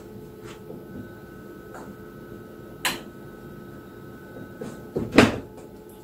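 The hinged lid of a FLUX beamo desktop laser cutter being handled: a sharp click about three seconds in, then the louder thump of the lid shutting about five seconds in, over a steady hum.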